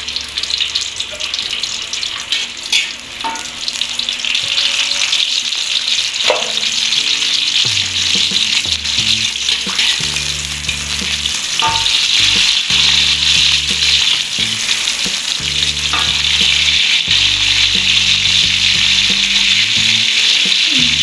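Sliced garlic frying in hot oil in a metal wok: a steady sizzle that grows louder about halfway through, with a few clicks and scrapes of a metal spatula stirring against the wok. This is the first step of a mie goreng, sautéing the garlic until it turns golden.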